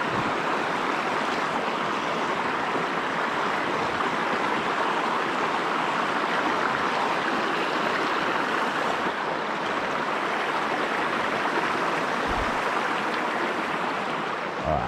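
Fast-flowing river water rushing steadily over rocks in a shallow riffle.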